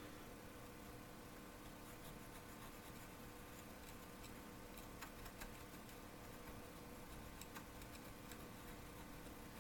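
Near silence: faint room hum with light, scattered clicks and scratches that start about two seconds in.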